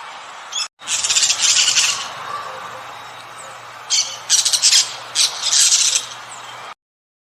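A bird calling: one long call about a second in, then a quick series of shorter calls about four seconds in, over a steady background. The sound cuts off suddenly shortly before the end.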